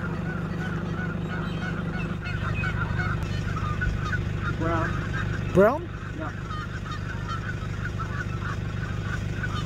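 Many short bird calls chattering continuously over a low, steady drone. A man's voice rises in pitch a little past halfway, asking "Brown?".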